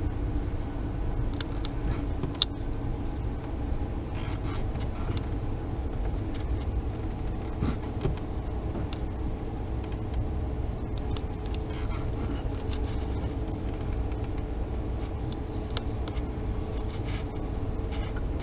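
Steady low rumble of a car driving slowly, engine and road noise heard from inside the cabin, with a few faint scattered clicks.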